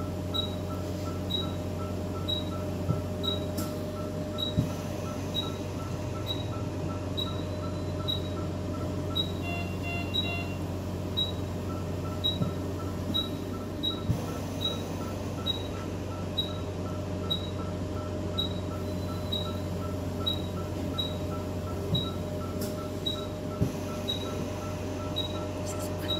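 A steady low hum with faint, evenly spaced high pips, about three a second, and a few soft knocks.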